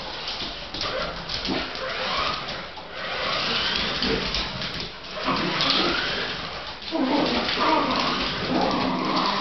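Fox terrier vocalising as it chases and pounces on a radio-controlled toy SUV. The toy car's electric motor whines underneath and rises in pitch several times as it speeds up.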